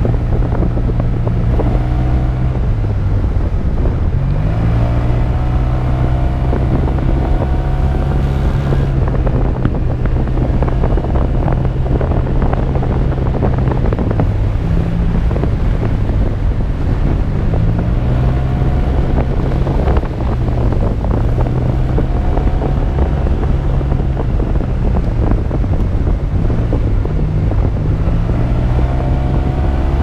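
Motorbike engine running on the move, its pitch rising and falling repeatedly as the throttle opens and closes, under a steady rush of wind over the microphone.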